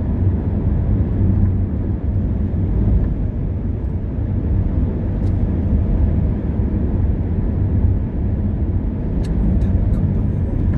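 Steady low rumble of a car travelling at motorway speed, heard from inside the cabin: tyre, road and engine noise. A few faint clicks come near the end.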